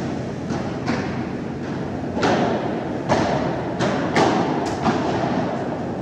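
Padel rally: the ball cracking off solid padel rackets and knocking on the court and glass walls, about eight sharp knocks at an uneven pace, each echoing briefly in a large indoor hall.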